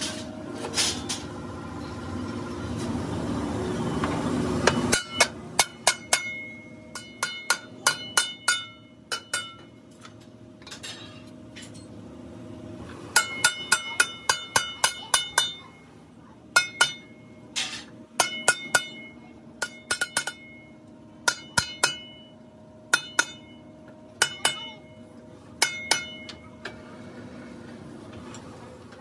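Sharp metal strikes on a steel tractor wheel rim mounted on a lathe, each one ringing on at the same few pitches, coming in quick runs of several strikes with short pauses between. Under them runs a machine hum, loudest in the first five seconds, where it swells and then drops off suddenly.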